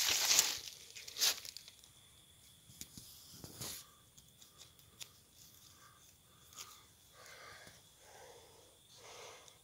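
Rustling and tearing noises, loudest in the first second or so and again briefly near three and a half seconds, followed by faint scattered clicks and soft rustles.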